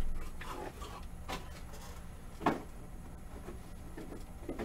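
Light handling noises of Pokémon booster packs being set down and arranged on a table mat. A few soft knocks stand out, the loudest about two and a half seconds in, over a low steady hum.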